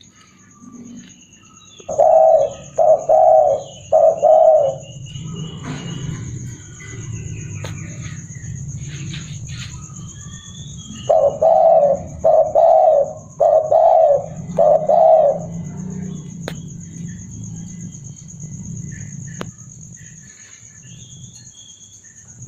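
Spotted dove (tekukur) cooing in two bouts: three low coos about two seconds in, then four more about eleven seconds in. Small birds chirp between the bouts over a steady high-pitched whine.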